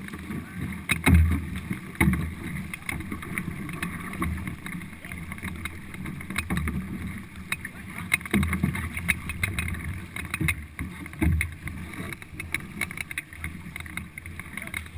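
A four-person racing canoe under way, its crew's paddles dipping and splashing, with water rushing along the hull. Low thumps of wind buffeting the microphone come every second or two, the strongest about a second in.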